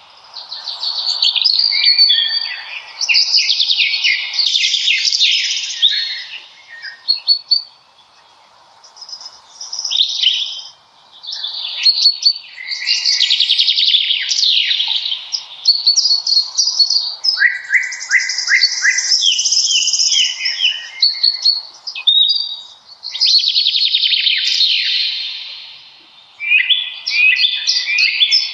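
Songbirds singing, one phrase after another of rapid chirps and trills, with short lulls about 8 and 11 seconds in.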